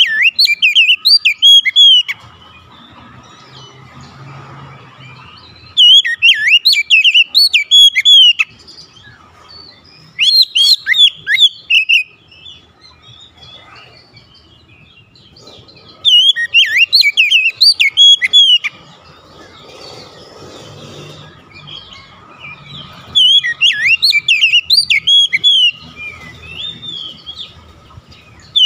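Oriental magpie-robin singing five bursts of rapid, varied high whistles and trills, each a couple of seconds long, with pauses of several seconds between. This is the excited full song that the bird unloads when stirred by a rival's call.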